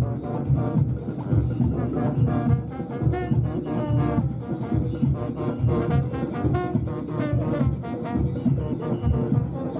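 Brass-led music playing throughout, with trombone-like low brass over a steady beat.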